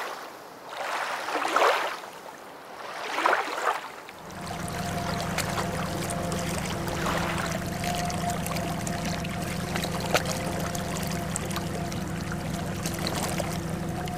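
Three swelling rushes of water-like noise, then, about four seconds in, a boat's outboard motor running steadily at low trolling speed, a constant low hum with a faint higher tone over it.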